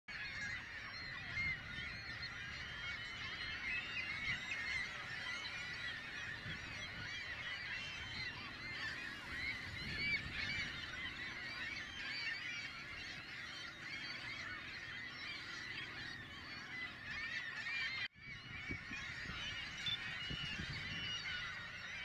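A large flock of gulls calling continuously, many short squealing calls overlapping into a din, with a brief break about eighteen seconds in.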